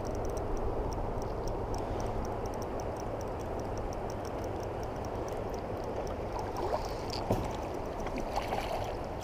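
Steady rush of river water around a kayak, with a light, regular ticking in the first few seconds and a few sharper sounds near the end.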